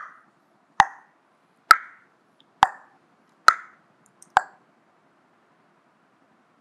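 A run of evenly spaced hollow plopping clicks, a little under one a second, each with a short ring. They stop after the sixth, about four and a half seconds in.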